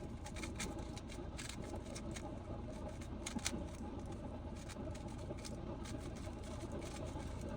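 Scattered faint clicks of a 3x3 Rubik's cube being handled and turned, over a steady low hum.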